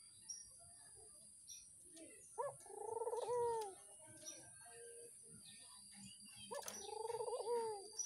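Caged Barbary doves (domestic ringneck doves) cooing: two rolling coos about four seconds apart. Each opens with a short rising note, then holds a trilled tone that falls away at the end.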